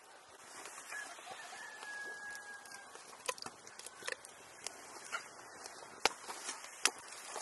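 A rooster crowing faintly about two seconds in, then a run of sharp clicks and taps.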